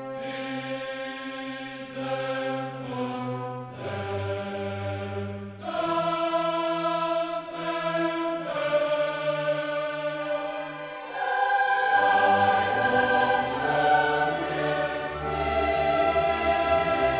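Music with a choir singing long sustained chords that change every few seconds and swell louder about twelve seconds in.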